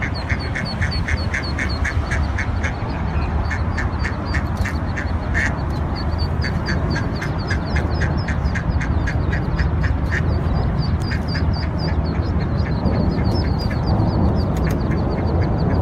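Ducklings peeping rapidly, high and shrill, with a run of short quack calls from the mother duck in the first couple of seconds, over a steady low rumble.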